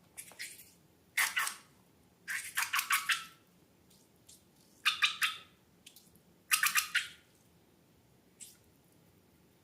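Slime being squeezed and worked by hand, giving short bursts of wet, squishy clicking and crackling, four times, each lasting about half a second.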